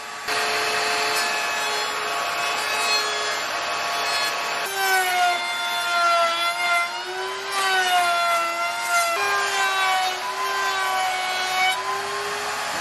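Router spinning at high speed, its round-over bit easing the edges of white oak strips fed through a router table. It makes a steady high whine that sags and recovers in pitch as the bit cuts.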